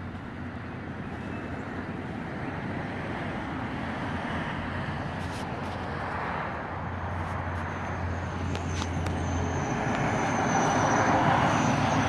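Road traffic going by, getting louder toward the end as a vehicle comes close. A steady low engine hum runs for a few seconds in the middle.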